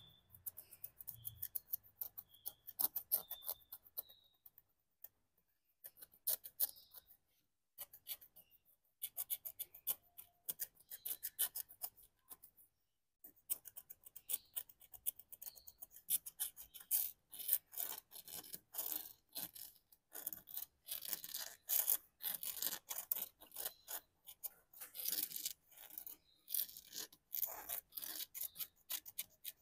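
Wooden stylus scratching the black coating off a scratch-art card: quick runs of short scraping strokes, with brief pauses now and then and the strokes growing louder in the second half.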